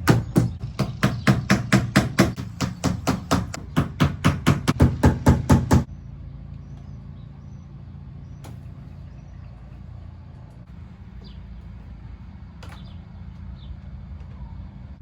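Background music with a fast, even percussive beat, about five beats a second, that cuts off abruptly about six seconds in. After it comes a steady low hum with a couple of faint clicks.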